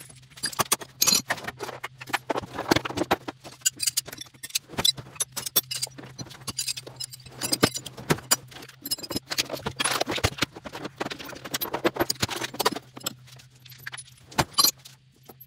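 Loose steel hand tools (ratchets, socket extensions, sockets, pliers) clinking and rattling as they are handled and set into the steel drawers of a US General Series 3 toolbox. The clanks and clicks come often and irregularly, over a steady low hum.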